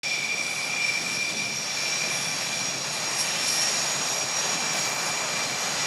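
Several Pilatus PC-7 single-engine turboprop trainers running at low power while taxiing: a steady engine rush with a held high whine, not rising or falling.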